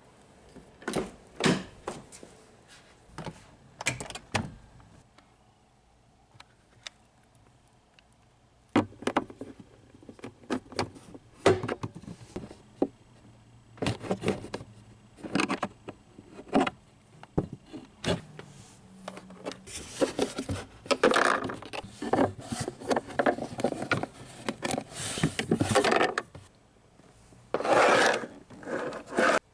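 Hands working on the cabin air filter housing and its trim in a Honda Civic: scattered sharp clicks and knocks, then longer stretches of rubbing and scraping about two-thirds of the way in and again near the end.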